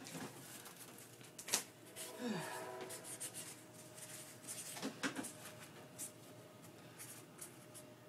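Quiet room with faint rubbing and a few soft clicks, the sharpest about a second and a half in and another pair near five seconds.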